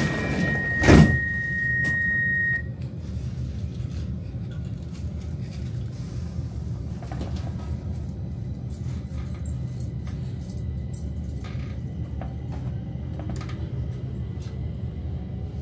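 Stockholm metro train: a high door-closing warning tone, the doors shutting with a loud thump about a second in, the tone stopping soon after, then the train pulling away with a steady low rumble and scattered light clicks and rattles.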